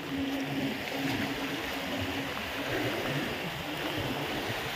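Steady wash of sea water, with a faint low hum that comes and goes.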